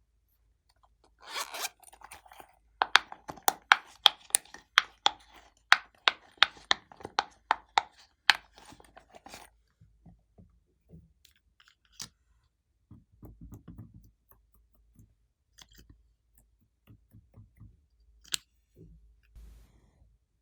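Glossy slime being worked by hand, giving a quick run of sharp clicking pops. These thin out after several seconds into softer, sparser squishes.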